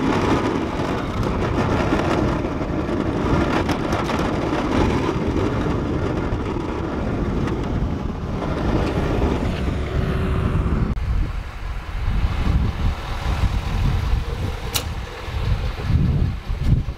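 Vehicle engine running, a steady dense noise that gives way about eleven seconds in to a lower, uneven rumble.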